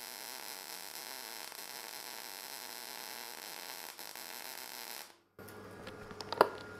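MIG welding arc from a synergic inverter welder with 0.8 mm wire and argon/18% CO2 on 1 mm steel, a steady hissing crackle that cuts off abruptly about five seconds in; a single sharp click follows near the end.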